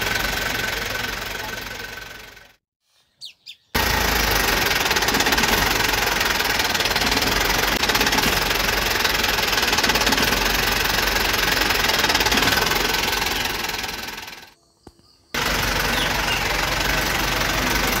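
A steady engine running noise. It fades out twice, once about two and a half seconds in and again near the end, and each time it cuts back in abruptly after about a second of near silence.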